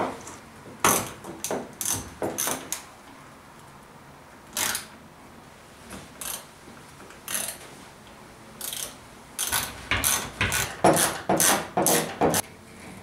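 Short bursts of ratcheting clicks as one-handed trigger bar clamps are squeezed tight on wooden blocks, along with the clatter of the clamps being handled. The bursts come a few at a time at first and crowd together over the last few seconds.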